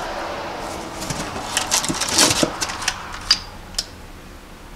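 Plastic bag and cardboard packaging rustling and crinkling as a bagged piston is lifted out of its box, with a run of short crisp clicks in the middle.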